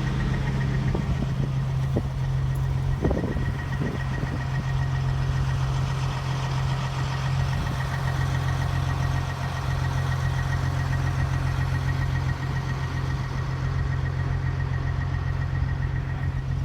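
Truck engine idling steadily, a constant low hum with a faint high whine over it. There is a brief knock about three seconds in.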